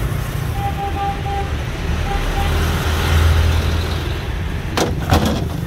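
Street traffic, with a motor vehicle rumbling past close by about three seconds in. A few short faint beeps sound in the first two and a half seconds, and two or three sharp clacks come near the end.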